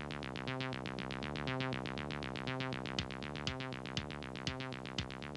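Background music: a fast run of evenly repeating notes over held low notes, with a beat of about two strikes a second coming in about three seconds in.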